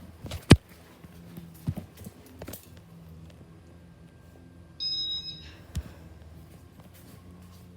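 Knocks and clicks, the loudest a sharp knock about half a second in, over a faint steady low hum, likely from the Casablanca Hermosa ceiling fan, with a short high electronic beep about five seconds in.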